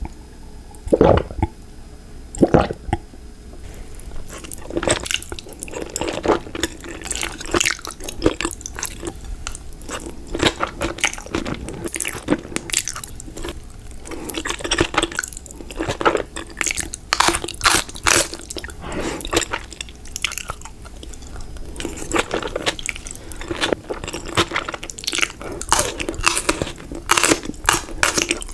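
Close-miked eating: a couple of swallowing gulps of water near the start, then the wet slurping, smacking and chewing of black bean noodles, broken by crunchy bites.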